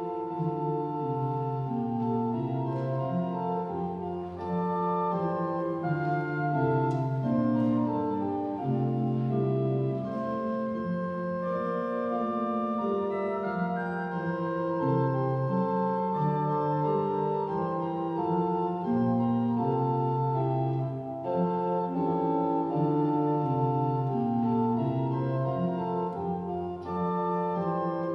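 Organ playing the closing music of a church service: sustained full chords, the harmony moving every second or so.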